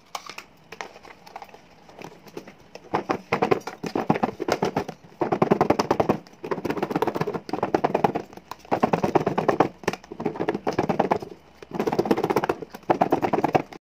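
Cut hog plum (amra) pieces and spice mix being shaken hard in a lidded plastic food box, a rattling and knocking in about seven bouts of a second or so with short pauses, starting a few seconds in after some fainter knocks. The fruit is being tossed with its spices to coat it.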